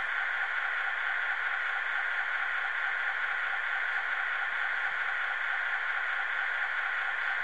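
Steady electronic static hiss, even and unchanging, with no speech over it.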